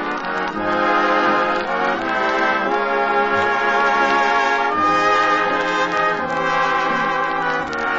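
Radio studio dance orchestra playing a brass-led passage, trumpets and trombones holding full chords that change about every second.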